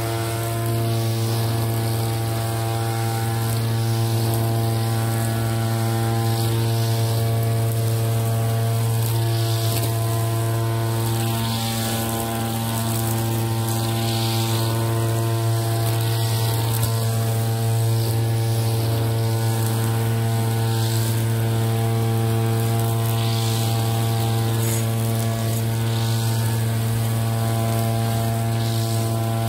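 Petrol brush cutter engine running at a steady high speed, with a swishing rise every two to three seconds as the spinning cutting line sweeps through the grass.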